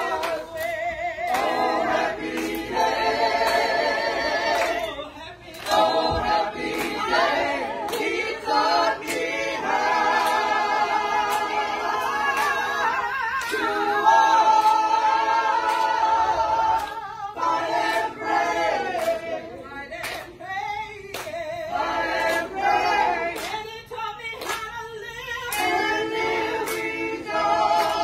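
A small crowd singing a praise song together without instruments, with hand clapping.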